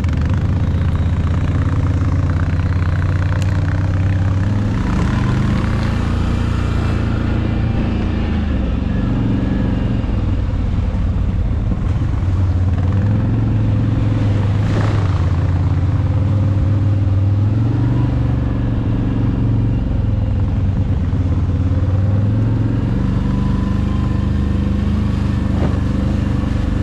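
ATV engine running steadily at trail pace, its pitch rising and falling a little with the throttle, with a single sharp knock about halfway through.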